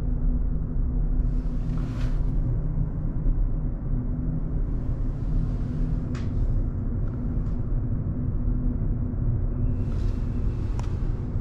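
Steady low rumble and hum of a passenger ferry's engines and machinery, heard inside a small cabin berth. Three brief rustles, each with a light click, come about two, six and eleven seconds in.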